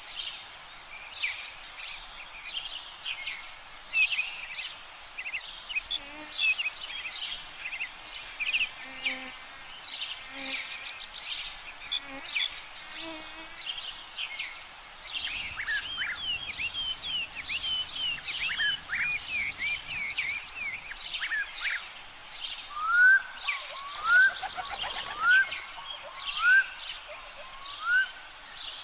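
Forest dawn-chorus-style bird song: many small birds chirping and twittering at once. About two-thirds through comes a rapid high trill, and near the end a bird gives a series of five rising whistles.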